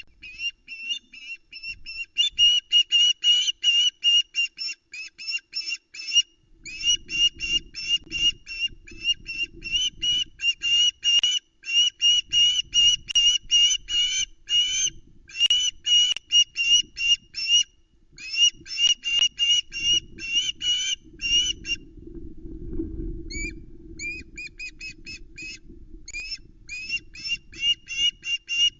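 Osprey calling in a fast series of high, whistled chirps, about four or five a second, with a short break about six seconds in and a longer one past the middle. A low rumble runs beneath the calls from about six seconds in and swells during the longer break.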